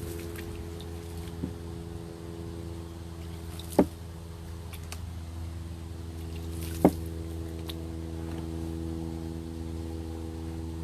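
A steady mechanical hum, like a motor or engine running, with two sharp clicks about three seconds apart.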